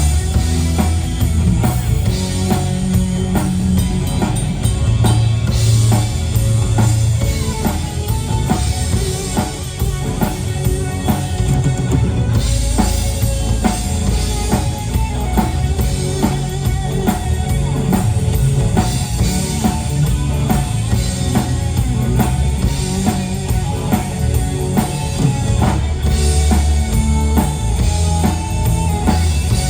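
Rock band playing a song, the drum kit keeping a steady beat with bass drum and snare throughout.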